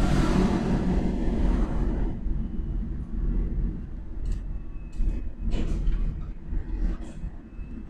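Cabin noise of a mini electric bus on the move: a steady low rumble of tyres and body, with an oncoming car rushing past in the first two seconds and a few light clicks and rattles later on.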